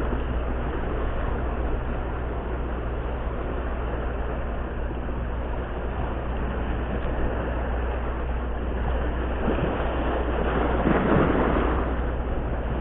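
Small sea waves washing and splashing against breakwater rocks over a steady low rumble, with a louder wash about eleven seconds in.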